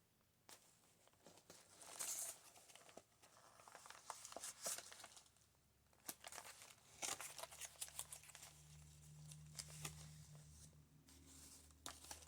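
Faint rustling and crinkling of paper and card as the pages of a thick handmade junk journal are turned and handled, in several short irregular bursts.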